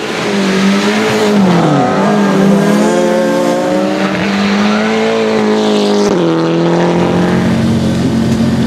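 Race car engine running hard at high revs. The pitch drops about a second in, then holds fairly steady. From about seven seconds it settles into a lower, steady engine note.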